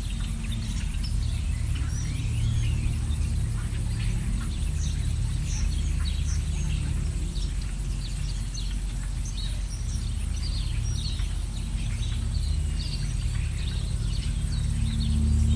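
Songbirds chirping and twittering with many short, quick calls throughout, over a steady low rumble.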